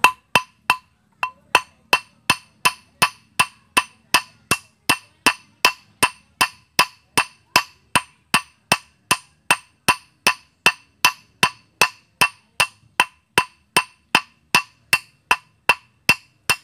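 Hand hammer striking a stainless steel wire on a rusty iron disc used as an anvil, in steady blows about three a second, each ringing briefly and metallically. The wire's end is being flattened out, a stage in forging a handmade fishing hook before the barb and point are cut.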